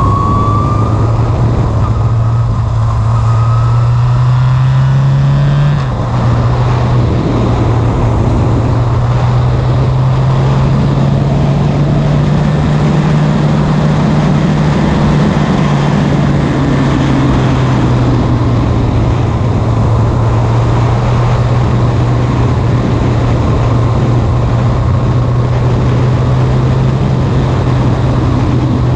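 Formula Renault single-seater race car's engine at high revs under full throttle, the pitch climbing for the first six seconds, then dropping suddenly with a brief dip in loudness as it shifts up a gear, and holding fairly steady after that.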